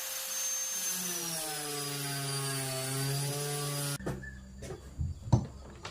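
A power tool's motor running with a steady hiss and a pitched whine that dips slightly, then holds. It cuts off abruptly about four seconds in, followed by a few scattered clicks and knocks.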